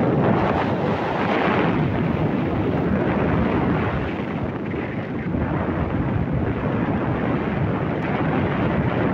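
Wind buffeting the microphone at speed, with a steady low rumble of rolling over a rough concrete road surface.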